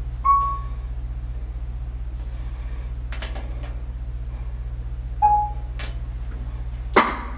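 Whirlpool top-load washing machine's control panel beeping as its buttons are pressed: two short electronic beeps about five seconds apart, with faint taps of fingertips on the panel between them. A sharp knock near the end is the loudest sound, over a steady low hum.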